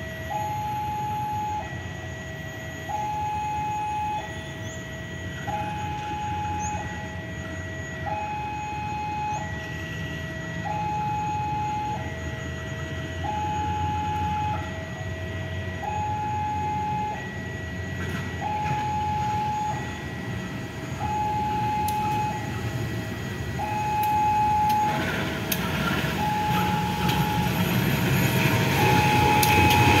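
Level crossing warning alarm sounding a two-tone electronic signal, a high and a low note alternating about every second. In the last few seconds a CC 201 diesel-electric locomotive comes up close, its running noise growing louder over the alarm.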